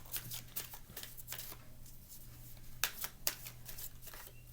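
A tarot deck being shuffled by hand: a run of quick, papery card snaps and riffles, with two sharper snaps about three seconds in.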